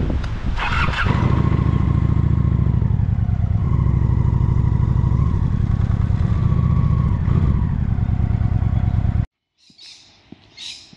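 Honda Shadow Spirit VT750's V-twin engine running with a steady low pulsing as the motorcycle rides along a sealed road, with a brief clatter about a second in. It cuts off suddenly about nine seconds in, leaving only faint scattered sounds.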